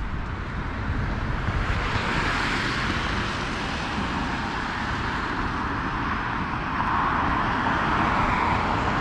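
Street traffic passing: a continuous rush of tyre and engine noise that swells about two seconds in and grows louder again near the end.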